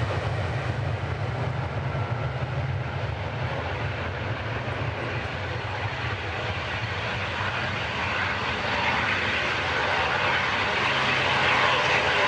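Jet airliner's engines running with a steady rumble and rush, growing louder over the last few seconds.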